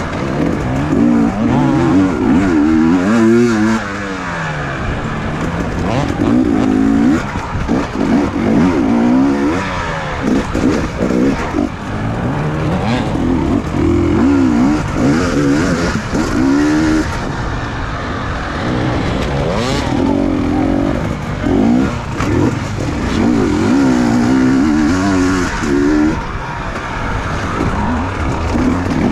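Enduro dirt bike engine heard from on board, revving up and falling back over and over as the rider accelerates, shifts and slows through the course.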